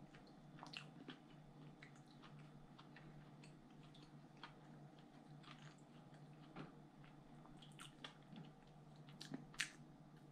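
Faint chewing of a loaded tortilla chip: scattered soft crunches and wet mouth clicks, over a low steady hum.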